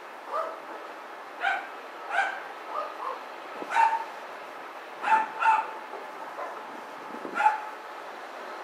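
A dog barking: about nine short barks at uneven intervals, over a steady hiss.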